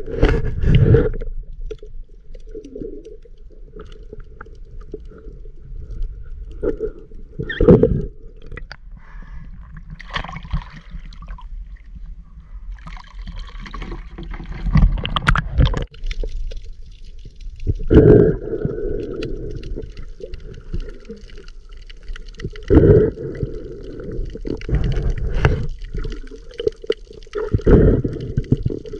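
Shallow seawater sloshing and gurgling around the legs of someone wading, with a louder splash every few seconds.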